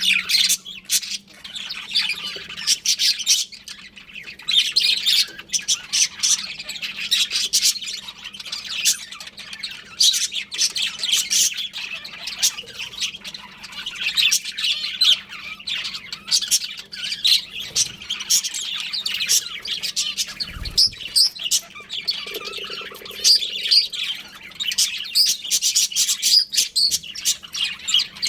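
Budgerigars chirping and squawking nonstop, many quick high calls overlapping. There is a brief low thump about twenty seconds in.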